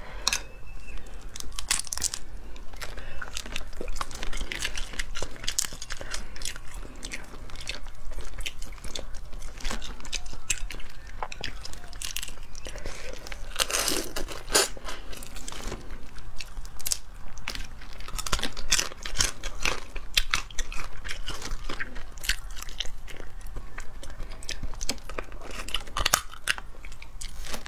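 Close-up crunching and cracking of shell-on cooked crustaceans as they are bitten, pulled apart and chewed, with wet mouth and finger sounds; irregular sharp cracks come thick and fast throughout.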